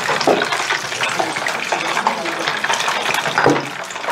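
Battered mussels deep-frying in hot oil: a steady, dense crackling sizzle.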